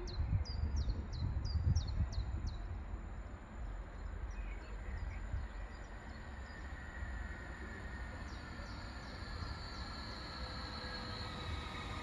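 A small bird calls with a quick run of high, falling chirps over a low rumble. From about two-thirds of the way in, the whine of an approaching electric passenger train rises and grows louder.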